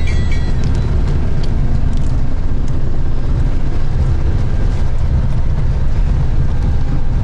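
Steady low rumble of a road vehicle driving, heard from inside the cabin.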